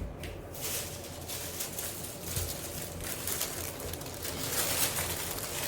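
Irregular rustling and handling noises, a run of soft scrapes and crinkles.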